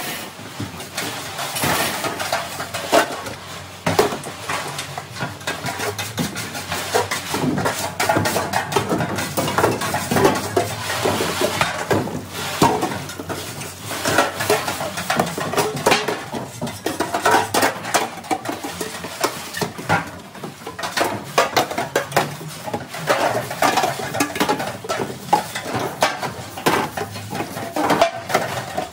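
Metal sheet pans and trays clattering and scraping against each other and a stainless steel sink as they are scrubbed in soapy water, with water splashing; many irregular knocks throughout.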